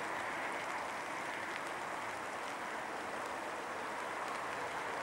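Steady rush of a shallow river running over stones and rocks.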